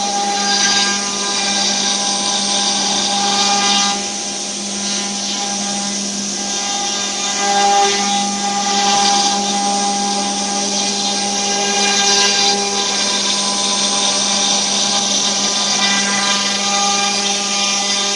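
CNC wood router's spindle running with a steady whine while the cutter works wood, the cutting noise swelling and easing every few seconds.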